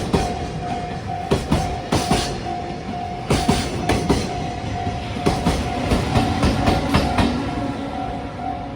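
Freight wagons rolling past, their wheels knocking over the rail joints in pairs about once a second. A Japanese level-crossing warning bell rings in a steady repeating electronic tone over them, and a low hum joins about six seconds in.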